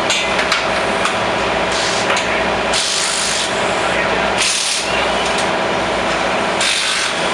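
Rasping, rubbing tool work over a steady hum, with a few short bursts of hiss about a second and a half apart.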